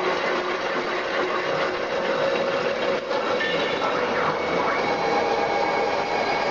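CNC vertical lathe cutting a steel flange: its two tool heads shearing metal with a steady noisy cutting sound under faint whining tones. A higher whine joins about two-thirds of the way through.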